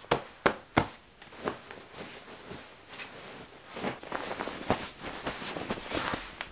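Hands patting and plumping bed pillows, a few soft thumps close together in the first second and a half. Bedding rustles as a duvet is pulled up and smoothed over the sheets, most busily in the last couple of seconds.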